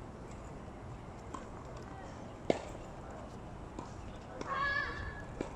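A tennis ball knocking on a hard court, with one sharp loud knock about two and a half seconds in and a few fainter ones, over steady outdoor background noise. Near the end a high voice calls out briefly.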